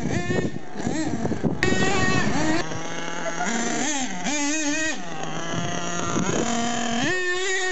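Small two-stroke engine of a radio-controlled monster truck revving up and down as it is driven, its pitch repeatedly falling and rising, with a quick rise about seven seconds in.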